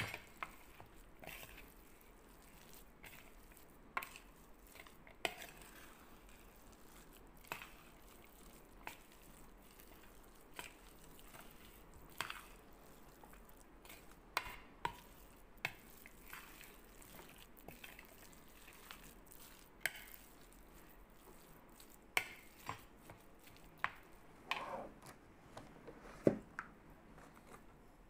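Raw ground beef mixed with egg and flour being stirred in a bowl: soft wet squishing with irregular light clicks and taps against the bowl, about one or two a second.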